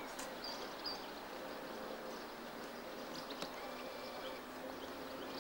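A steady low buzzing hum over faint background noise, with a few faint high chirps.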